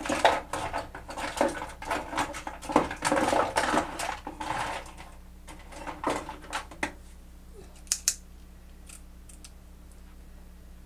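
Rustling and clicking as the long synthetic hair of a lace wig is handled and swept aside. The sound is dense for about five seconds, then thins to a few scattered clicks.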